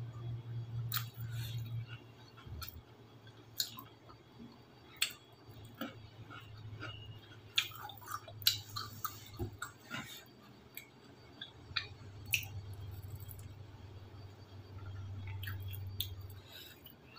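Close chewing and mouth sounds of someone eating rice and fried fish with their fingers, with scattered light clicks and taps of fingers and food against a plate, over a low steady hum.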